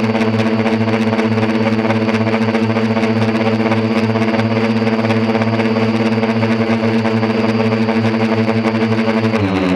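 Quadcopter motors and propellers humming steadily, with a thin high whine above the hum. Just before the end the whole hum steps down in pitch as the motors slow.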